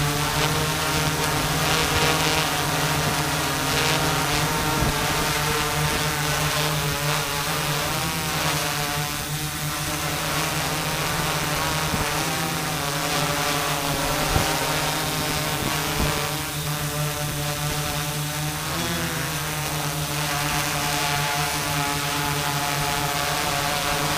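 Multirotor drone's electric motors and propellers whirring steadily close to the onboard camera, the pitch sliding up and down a couple of times as the motors change speed.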